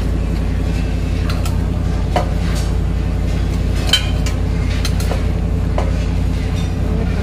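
Steel spoon scraping and clinking against a steel pot as meat masala is spooned over boiled tapioca, with a few sharp clinks, the loudest about four seconds in. Under it runs a steady low machine drone.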